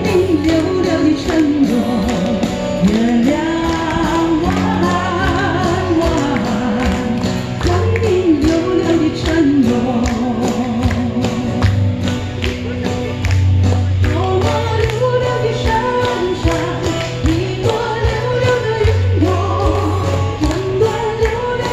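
A woman singing a Chinese folk song medley into a microphone, with vibrato on held notes, over guitar and a bass line with a steady beat, played through a PA.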